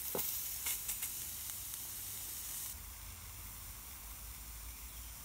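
Partridge breast sizzling in a hot metal dish on a Swedish candle fire, just turned over, with a few small crackles. The sizzle drops to a fainter hiss a little under three seconds in.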